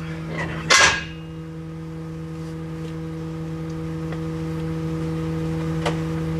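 Steady, pitched mechanical hum inside an enclosed car-transporter trailer, with a single sharp knock about a second in.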